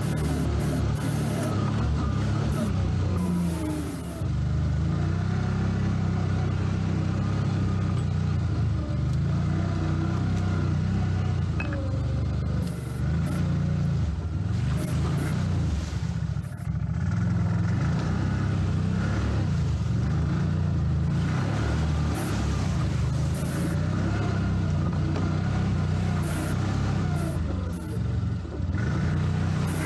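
CFMoto CForce 1000 ATV's V-twin engine running while riding, its revs rising and falling throughout, with brief lulls a few times.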